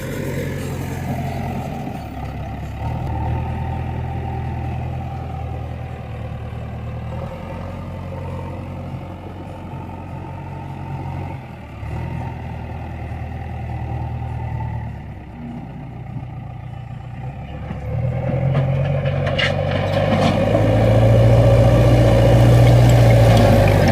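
JCB 3DX backhoe loader's diesel engine running steadily, then revving up and working harder about three-quarters of the way through.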